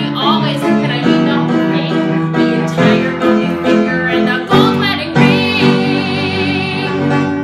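A woman singing over instrumental backing. She ends on one long held note with vibrato.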